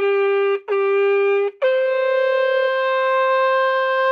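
A long straight valveless herald's trumpet blown in a fanfare: short notes on one pitch, then a long held note a step higher.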